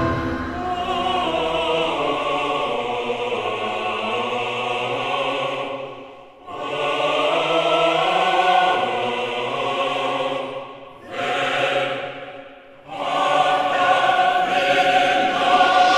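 Choral music: a choir singing long held notes, in phrases broken by short pauses about six, eleven and thirteen seconds in.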